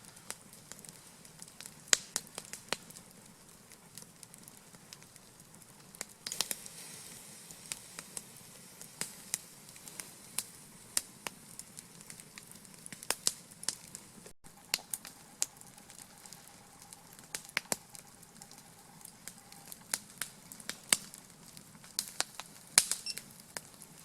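Small wood campfire crackling: irregular sharp pops and snaps over a low steady hiss.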